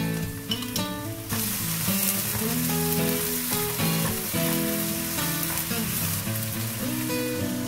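Tomato spaghetti sauce sizzling and frying in a hot non-stick wok with sautéed garlic, onion and carrot, stirred with a spatula. The sizzle starts suddenly about a second in.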